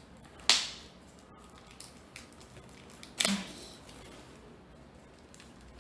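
A new book's wrapping being torn open by hand: two short, sharp rips, about half a second in and again about three seconds in.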